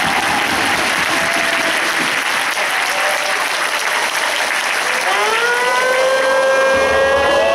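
Crowd of supporters clapping and cheering. About five seconds in, a long, slowly rising tone with overtones starts up over the applause and holds.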